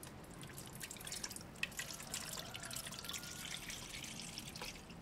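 Water poured from a plastic measuring jug into a stainless steel pot, splashing and trickling against the metal; the pour stops near the end.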